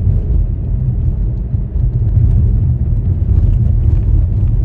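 Road and engine noise heard inside a moving car's cabin: a steady, loud low rumble.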